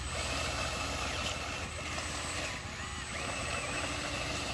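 Radio-controlled crawler bulldozer running as it works loose dirt, a steady, continuous mechanical drone.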